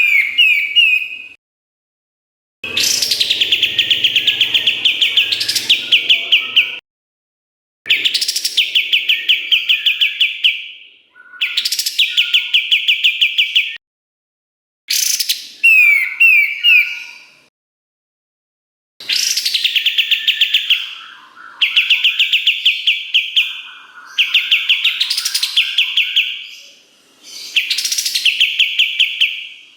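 White-shouldered triller (kapas tembak) singing: loud phrases of fast, high, rattling trills, each one to four seconds long, with short silent breaks between them.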